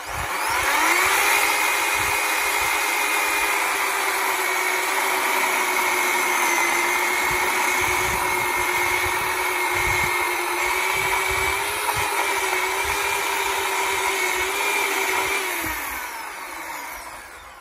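Bosch GKE 35 BC corded electric chainsaw (1.6 kW, side-mounted motor) spinning up with a rising whine, then running steadily while its chain cuts through a log. It winds down near the end. The pitch hardly sags under the cut: it saws smoothly with no jerks and no felt load, even on a resharpened, well-used chain.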